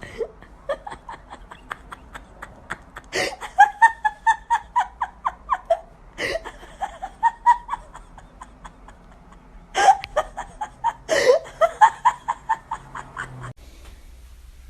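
A person laughing hard in quick runs of about five pulses a second, with sharp gasping in-breaths between the runs.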